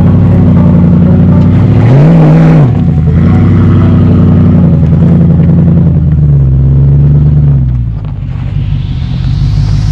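Toyota Sequoia V8 engine pulling under load up a steep, loose dirt trail, with a brief rev up and back down about two seconds in. The engine eases off near the end, with a rising hiss over it.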